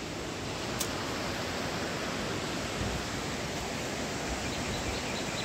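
Steady rush of water spilling over a low river dam.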